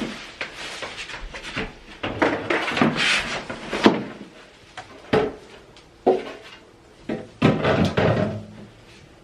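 Handling noises: a series of knocks, bumps and rustling scrapes of objects being moved and set in place, with sharper knocks about four, five and six seconds in. A denser cluster follows between seven and eight and a half seconds, and it goes quieter near the end.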